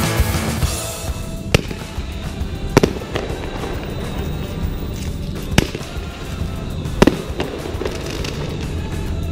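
Fireworks going off at a distance: four sharp bangs, a second or more apart, over steady low background noise. Background music fades out in the first second.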